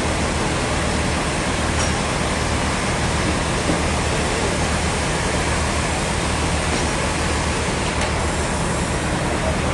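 Steady, even din of sawmill machinery running, with a constant low hum underneath.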